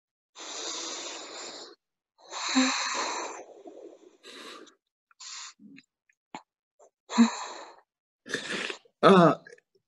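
Heavy breathing close to a phone microphone: two long breaths, then shorter huffs with a few faint clicks, ending in a brief moan near the end.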